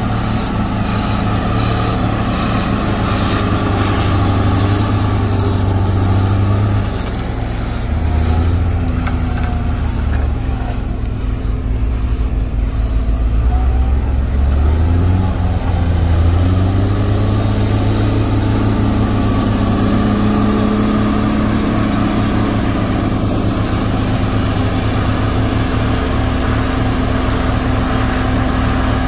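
Heavy diesel engines of a Case 845B motor grader and a single-drum road roller working gravel. The engine pitch steps up and down several times partway through, then holds steady.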